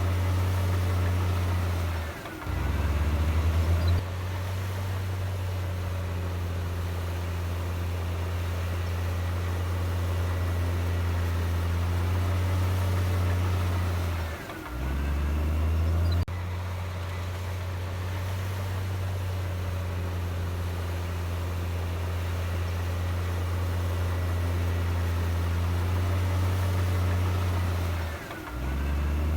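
Komatsu D58E bulldozer's diesel engine running steadily under load. Three times its pitch drops sharply for about a second and then climbs back.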